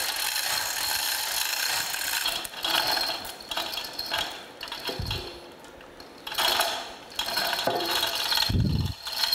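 A hoist chain rattling while the cast-iron planer cross head is lowered onto a granite surface plate and rubbed on it, iron rasping on stone in uneven stretches with a couple of dull thumps. This rubbing spots the high points through the marking ink for the next round of hand scraping.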